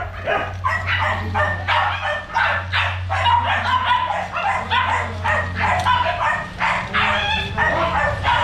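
Dogs yipping and whining in quick succession, two or three short calls a second, over a steady low hum.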